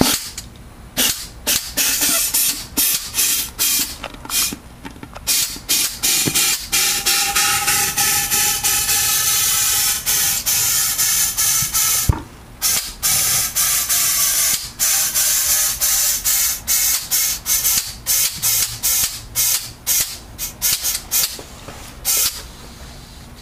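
Compressed air hissing from a lever-controlled automotive air nozzle as it inflates the rubber bladder of a cut-open reverse osmosis storage tank. The air comes in many short spurts, about two or three a second, with one longer blast of several seconds in the middle that carries a faint whistle.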